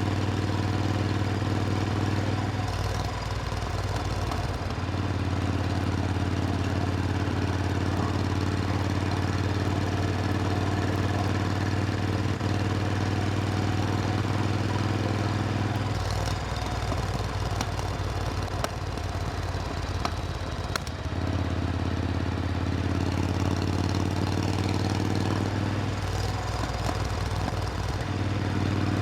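Supercharged Triumph Thunderbird Storm's parallel-twin engine running at a steady pitch. Three times the steady tone breaks into a rougher, uneven sound for a few seconds, once near the start, once in the middle and once near the end, as the engine's load or speed changes.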